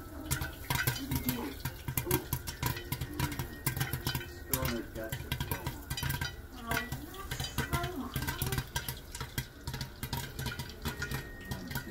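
Popcorn popping inside a covered Griswold No. 9 cast-iron Dutch oven: many sharp, irregular pops, several a second, in a dense crackle.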